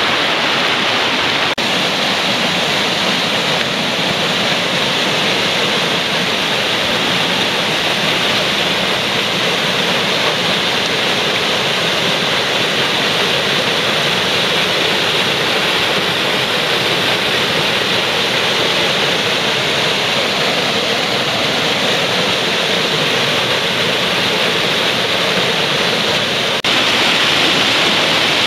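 Steady rush of a fast mountain stream tumbling over rocks and a small waterfall, a little louder near the end.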